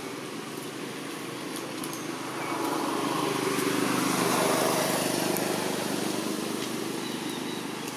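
A motor vehicle engine passing by, growing louder about three seconds in and then fading away.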